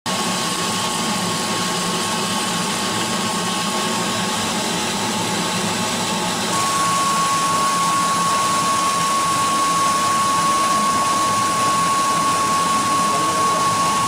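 Homemade vacuum cleaner, a 12 V DC exhaust fan pulling air through a hose into a plastic jar, running steadily: rushing air with a steady high whine, a little louder from about six and a half seconds in.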